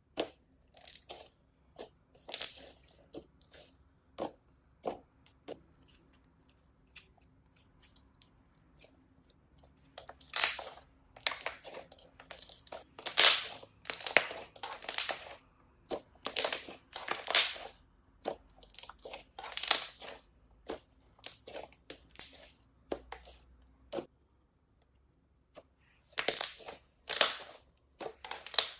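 Crunchy slime being squeezed and pressed by hand, giving irregular crackling and crunching bursts. The bursts are sparse at first and come thick and loud from about a third of the way in, with a short lull before a last loud run near the end.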